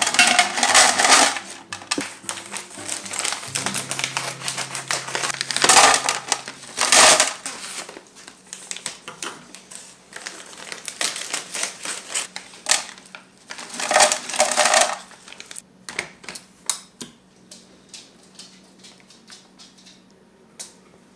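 A plastic zip bag crinkling and dried apple slices sliding and clattering into a tall clear plastic canister, in several loud bursts. Lighter clicks and taps follow as the slices settle and are handled. Faint background music plays in the first few seconds.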